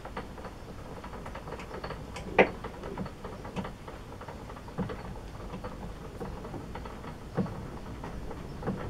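Scattered light clicks and knocks from an old Turnell & Odell metal lathe as the saddle is wound along the bed by its handwheel, with one sharper knock about two and a half seconds in.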